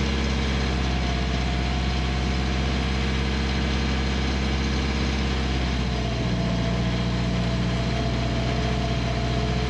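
Yanmar marine diesel engine of a sailboat running steadily at about 2,000 rpm under test, its note changing about six seconds in. The engine is faulty and the crew suspects fuel starvation.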